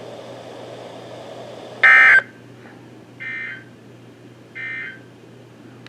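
Three short EAS end-of-message digital data bursts on a NOAA Weather Radio broadcast, about a second and a half apart, the first the loudest, over a low steady hum. They mark the end of the alert message.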